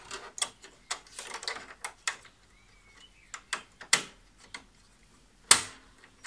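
Hard plastic parts of a Brother laser printer clicking and knocking as they are handled and fitted into place during reassembly, with the loudest, a sharp snap with a short ring, about five and a half seconds in.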